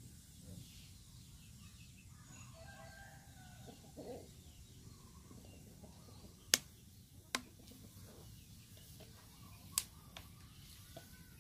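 A quiet wood cooking fire with three sharp crackles, about a second and then two and a half seconds apart, over a low steady rumble, with faint bird calls in the background.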